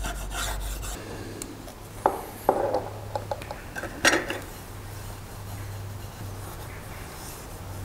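A few light clicks and taps, with soft rubbing, as a felt primer dauber is worked over a small aluminium bracket, most of them about two to four seconds in. A steady low hum runs underneath.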